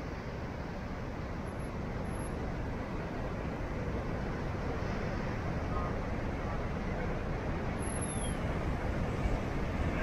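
Heavy surf breaking over shoreline rocks: a steady, dense roar of waves and churning white water, growing slightly louder.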